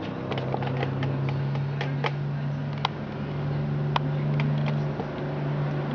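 Scattered light clicks and ticks of the stopped chainsaw's metal and plastic parts being handled, over a steady low hum.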